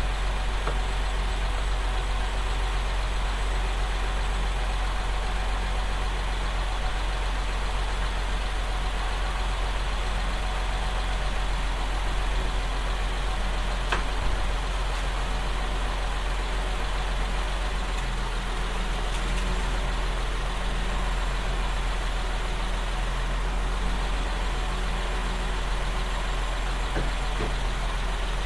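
2024 Nissan Z's twin-turbo 3.0-litre V6 idling steadily on fresh oil just after an oil change, sounding good to the owner.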